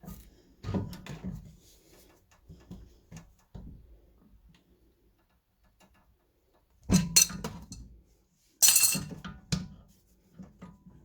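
Metal clinking and clattering of a brake caliper piston windback tool being worked against a car's rear brake caliper, with two louder bursts of clatter about seven and nine seconds in.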